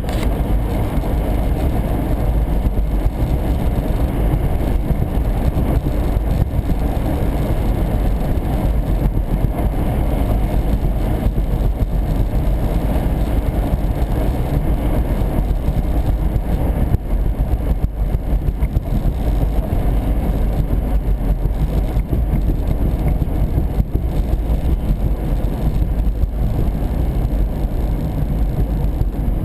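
Vehicle driving on a highway: steady engine and road noise.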